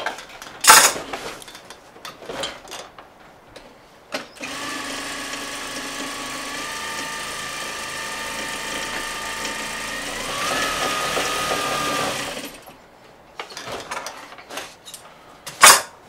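Sewing machine stitching a seam in upholstery fabric: it runs steadily for about eight seconds, speeds up near its end, then stops. A sharp click comes shortly before it starts and another near the end.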